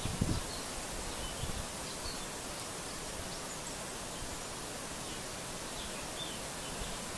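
Steady outdoor background hiss with a light rustle, and a few faint, short, high chirps of distant birds scattered through it.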